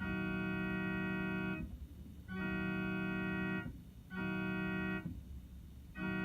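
An electronic keyboard on an organ-like voice plays a sustained chord imitating a Nathan K3L/K3H train air horn. It sounds in separate blasts, long, long, short, then a fourth starting near the end, like the opening of a grade-crossing horn signal.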